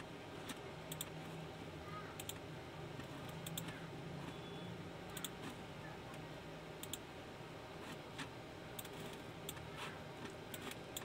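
Scattered single clicks at a computer, about one every second or two, heard over steady room noise with a low hum.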